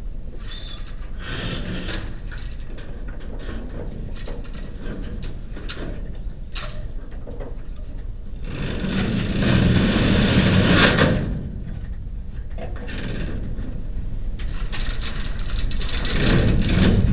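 Scattered clicks, knocks and scrapes of hand repair work on a sectional overhead door's top mechanism, over a steady low rumble. A louder stretch comes about nine to eleven seconds in, with a sharp crack near its end.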